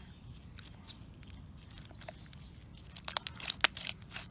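Fluffy, stretchy slime being stretched, folded and squished by hand, giving off scattered small clicks and pops. The clicks come thicker and louder in the last second or so.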